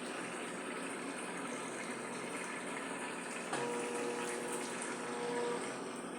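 Brastemp Clean washing machine running with water, a steady rush of water. Just past the middle a steady tone comes in and holds for about two seconds before stopping.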